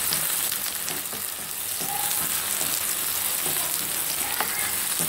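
Freshly sliced onions frying in hot oil in a pan: a steady sizzling hiss with small crackles.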